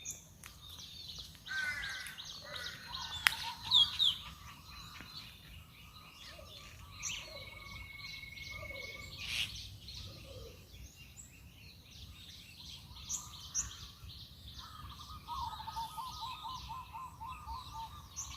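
Several wild birds calling and singing at once, a mix of short chirps, rapid trills and whistled notes, with one sharp click about three seconds in.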